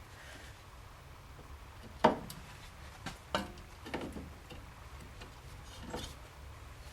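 A few sharp metal clicks and taps of hand tools at a car's steering tie rod end. The loudest comes about two seconds in, with smaller ones a second or two later.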